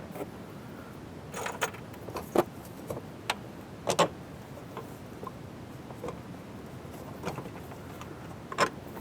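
Scattered sharp metal clinks and knocks of bolts and hardware being handled while fitting the new holding-tank gate valve and its gaskets to the drain flange. The loudest knocks come about two and a half, four and eight and a half seconds in.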